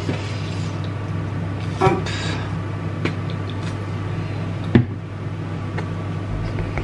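A few light clinks and taps of a spoon against the Thermomix's steel bowl and the mustard jar as mustard is spooned in, the sharpest knock nearly five seconds in, over a steady low hum.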